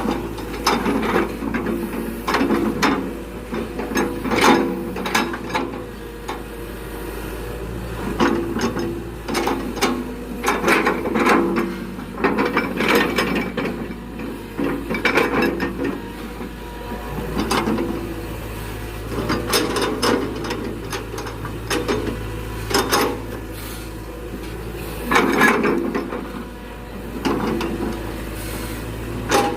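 Excavator handling rubberwood logs: repeated bouts of clattering and knocking over a steady low engine drone.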